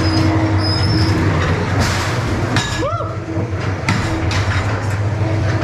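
Ghost train ride car rolling along its track with a steady rumble and low hum. Short hissing bursts come about two seconds in, and a brief rising-and-falling cry or squeal about three seconds in.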